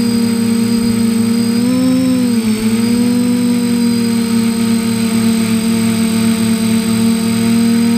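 A drone's electric motors and propellers whining steadily in flight, heard from the onboard camera. The pitch wavers briefly about two seconds in as the motors change speed.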